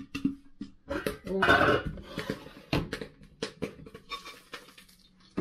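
Stainless steel cooking pot and lid clattering and knocking against the ceramic hob as the pot of freshly popped popcorn is handled and lifted for pouring. There are a series of sharp knocks, and a louder scraping rattle about a second and a half in.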